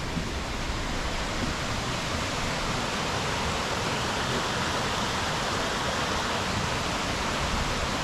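Water rushing over the rocks of a shallow forest stream's rapids: a steady rushing noise that grows a little fuller from about three seconds in.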